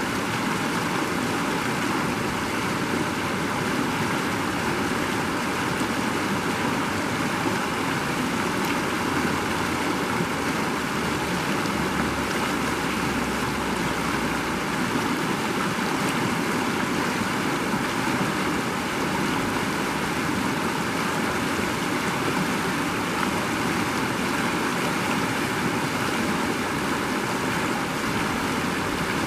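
Shallow creek running fast over rocks and small riffles: a steady, even rush of water.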